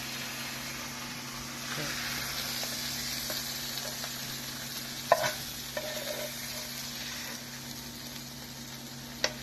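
Chicken sizzling as it fries in a pan, the hiss building about two seconds in, with two sharp knocks, about five seconds in and near the end.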